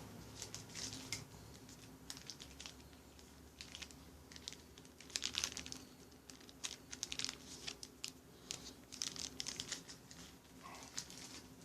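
Sealed trading-card packs in plastic wrappers crinkling in bursts of rustles as they are handled and sorted by hand.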